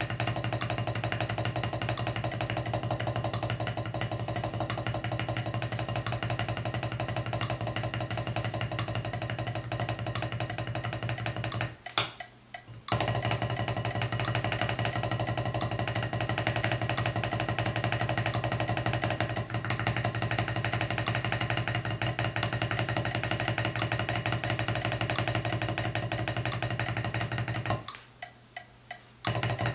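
Single-stroke roll on a rubber drum practice pad, wooden sticks alternating hands rapidly at 176 bpm. It stops briefly twice, and in the second pause four evenly spaced clicks count the playing back in.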